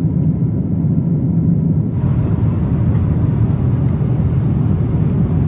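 Steady cabin noise of a Boeing 777-200ER in cruise: a low rumble of engines and airflow. About two seconds in the sound shifts, with more hiss on top.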